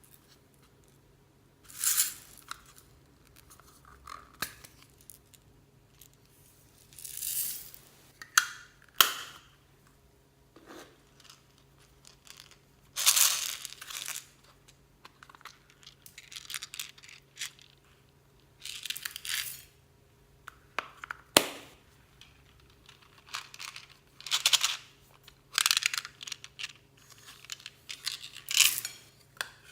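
Clear slime loaded with beads and floam being squished, stretched and folded by hand: irregular bursts of sticky crackling and popping, with sharp clicks between them.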